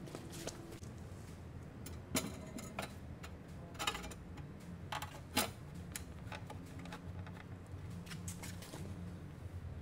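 A lawn-and-garden battery being handled and set down into a welded sheet-steel battery box for a test fit: a few sharp knocks and scrapes of the plastic battery case against the metal box, the loudest about two seconds in, again near four and five and a half seconds. A low steady hum runs underneath.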